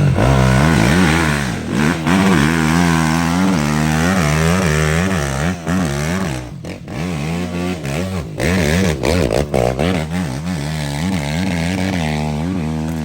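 Dirt bike engine revving up and down in quick, repeated throttle blips as the bike is ridden, with a few brief drops in between.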